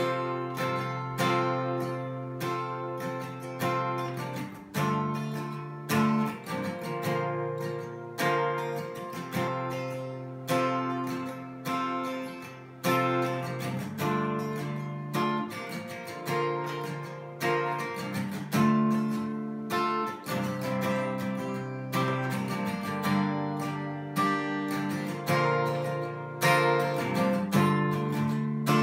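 Steel-string dreadnought acoustic guitar with a capo, strummed in a steady rhythm through a chord progression, with a sharp attack on each strum and chords changing every few beats.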